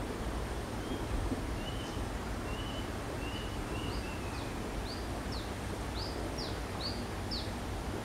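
Brown-throated sunbird (kolibri kelapa) singing: a run of short thin chirps that, from about halfway, alternates with sharp downward-sweeping notes that grow louder toward the end. A steady background hiss runs underneath.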